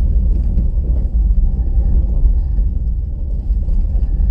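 A car driving along a dirt road: a steady low rumble of engine and tyres on the unpaved surface.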